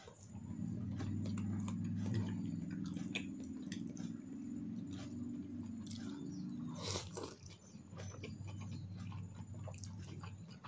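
Chewing and slurping a mouthful of instant noodles and sausage, with small wet clicks, over a low steady hum; a louder slurp about seven seconds in as a chopstick load of noodles goes into the mouth.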